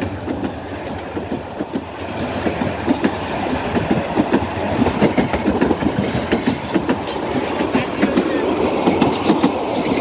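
Passenger coaches of the Dolonchapa Express running past close by at speed, their wheels clacking over the rail joints in a rapid, uneven rhythm over a steady rumble.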